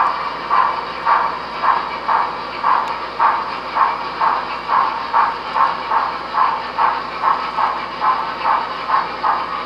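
Sound-equipped HO scale model steam locomotive, a Broadway Limited Imports GM&O 4-6-2 light Pacific, making a steady steam chuff of about two chuffs a second from its onboard sound system as it runs.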